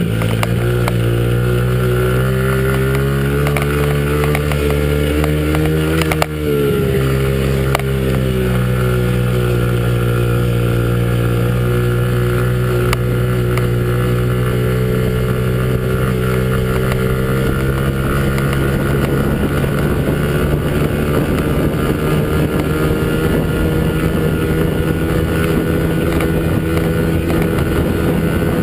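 Small off-road vehicle's engine running at steady throttle, its note creeping up in pitch, then dipping briefly about six seconds in and holding steady after that, with wind noise on the microphone.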